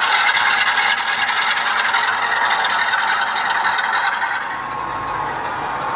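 Model locomotive's DCC sound decoder playing a Class 45 diesel engine recording through a small onboard speaker, thin and without bass, while the train's wagon wheels rattle over the track. It eases off slightly about four and a half seconds in as the locomotive draws away.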